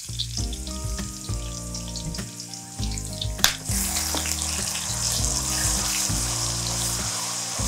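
Blended garlic, ginger and onion paste going into hot oil in a wok: the oil crackles lightly at first, then about three and a half seconds in it breaks into a louder, steady sizzle as the wet paste hits the oil. Background music with held notes plays throughout.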